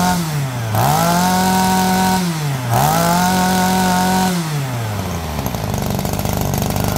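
Shindaiwa two-stroke brush cutter engine revved with the throttle: it falls from high revs, climbs quickly twice and holds each time for about a second and a half, then drops back to a steady idle about five seconds in.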